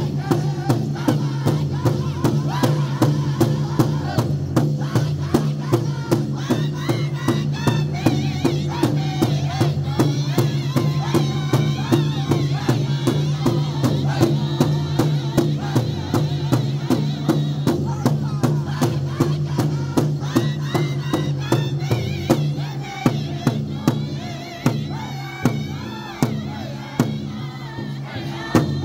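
Powwow drum group singing together in high-pitched voices over a steady beat, several drumsticks striking one large shared drum in unison. Toward the end the voices drop back and the drumbeats stand out more.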